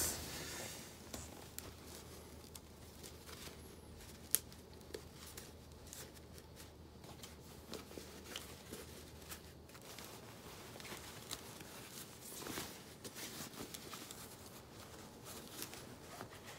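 Faint handling noise as a plastic fan unit is fitted into the fabric opening of a fan-cooled work jacket: cloth rustling and small plastic clicks, with one sharper click about four seconds in. The fan is not running.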